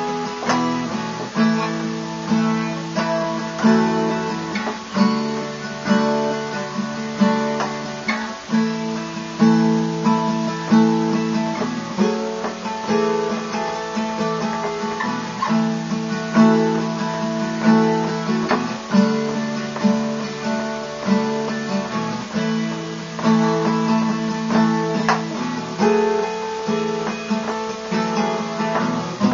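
Background music: acoustic guitar strumming, with steady plucked chords throughout.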